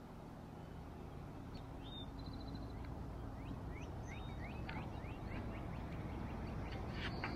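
Birds calling: a quick run of about eight short, thin chirps a few seconds in, and a louder call near the end, over a steady low rumble.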